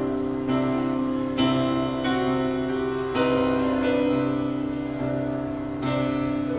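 Yamaha PSR-S710 arranger keyboard playing a piano sound: slow chords struck about once a second and left ringing.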